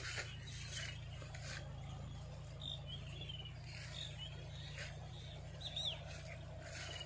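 Faint bird chirps, a few short calls with the clearest about six seconds in, over a steady low hum.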